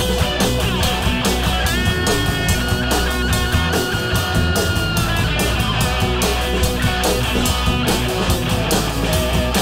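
Live rock band playing: distorted electric guitars over drums and bass, with a lead guitar holding long, steady notes partway through.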